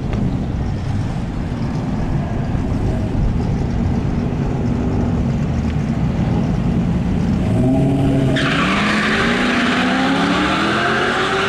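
Drag-racing vehicles, a supercharged 5.4-litre V8 Ford F-150 SVT Lightning pickup and a Dodge Magnum, running at the starting line. About seven and a half seconds in, engine pitch climbs as they rev up. From about eight seconds a loud hiss of spinning, skidding tyres joins in.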